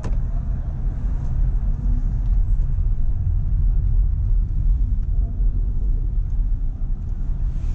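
Low, steady rumble of a car heard from inside the cabin while it drives: engine and road noise as it pulls forward in slow city traffic.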